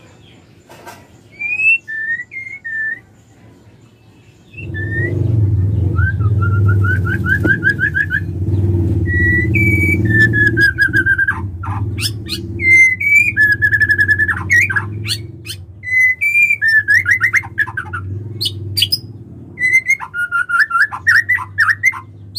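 Female white-rumped shama calling: short whistled notes and fast rattling trills, repeated with brief pauses. A steady low hum starts about four and a half seconds in, beneath the calls.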